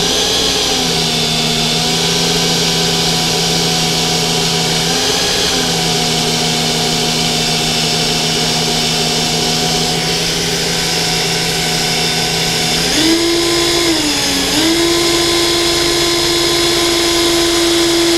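DeWalt cordless drill running at speed, spinning the e-cigarette's metal tube while a file is held against it to cut it open. The motor's steady whine dips briefly about five seconds in, then rises to a higher pitch around thirteen seconds, with a short dip just after.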